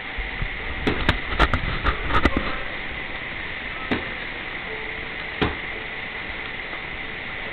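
A quick run of sharp knocks and clatter about a second in, then two single knocks a little later, over a steady hiss.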